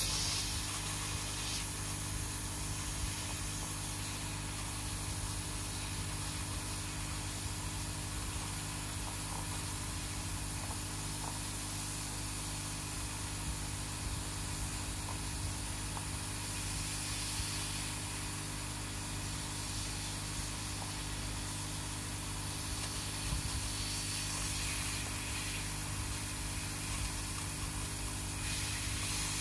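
Hot-air rework gun blowing a steady hiss of air over a circuit board, with a low electrical hum underneath.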